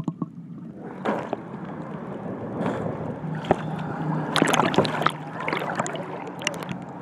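Water sloshing and splashing against a waterproof camera at the surface, with irregular sharp splashes. The first second is muffled and gurgling while the camera is underwater.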